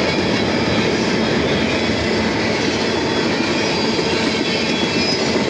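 Freight cars of a CSX mixed manifest train rolling past on steel rails, a steady, unbroken noise of wheels on track.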